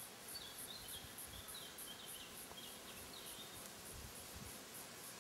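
Faint bush ambience: a high insect chirp repeating about four times a second, with a bird giving a short run of quick chirps over the first three seconds. A few low bumps about four seconds in.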